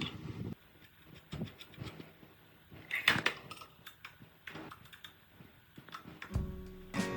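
Scattered light clicks and knocks, with a louder clatter about three seconds in; acoustic guitar music starts near the end.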